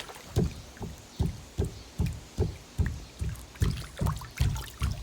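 Footsteps on an emptied pool's shallow-end floor, a regular series of low, hollow thuds about two and a half a second, each dying away briefly. The hollow sound marks where the owner believes there is a void under the floor, which also feels soft.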